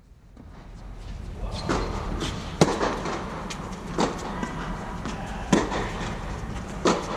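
Tennis rally: a ball struck back and forth by rackets, sharp pops about every second and a half with fainter knocks between, ringing in the hall of an air-supported tennis dome. The sound fades in over the first second.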